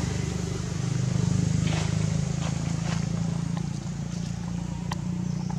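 A motor engine running steadily, with a few faint clicks.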